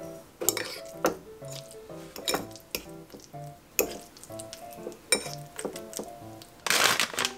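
Metal fork mashing avocado in a ceramic bowl: irregular clinks and scrapes of the tines against the bowl, with a longer scraping burst near the end, over light background music.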